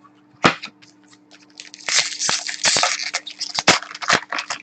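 Trading card packs and cards being handled: a single click about half a second in, then about three seconds of crinkling and rustling broken by sharp snaps, as of a foil wrapper and cards being worked by hand. A faint electrical hum runs underneath.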